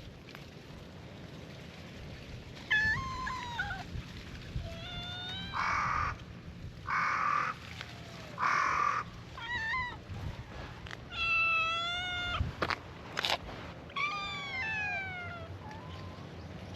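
Stray cats meowing again and again, about eight drawn-out meows a second or two apart, their pitch bending up and down, the loudest in the middle. Two sharp clicks come about three-quarters of the way through.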